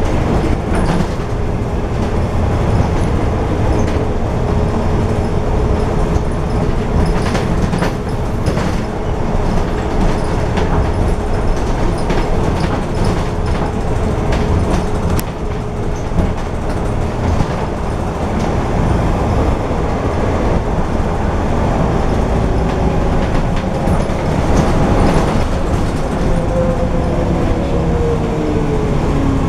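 Interior noise of a Volvo B12M articulated bus under way: a constant low drone from the diesel drivetrain and road, with rattles from the body. A steady whine holds through the first half and fades, and near the end a whine rises in pitch.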